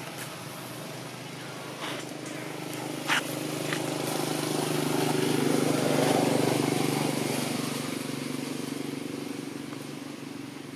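A motor vehicle's engine passing by, growing louder to a peak about six seconds in and then fading away. A short sharp click about three seconds in.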